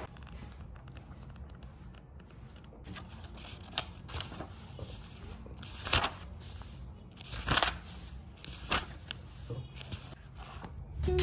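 Paper pages of a hardcover monthly planner being turned by hand: a few separate short rustles and flicks, the loudest about halfway through and again a little later.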